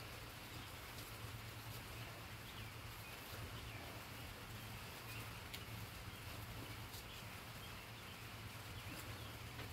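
Quiet outdoor ambience: scattered faint bird chirps over a low steady hum, with a few faint clicks.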